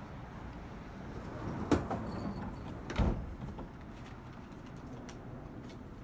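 Bombardier MultiLevel rail car's side door sliding shut: a sharp knock about a second and a half in, then a heavier thud as it closes about three seconds in, over the low steady rumble of the standing train.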